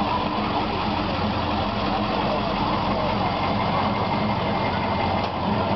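Pickup truck engine idling as the truck rolls slowly past, a steady low hum.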